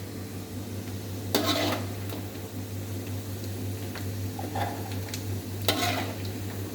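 A metal cooking utensil scraping and clinking against a pan three times, about a second and a half in, near five seconds and again near six seconds, over a steady low hum.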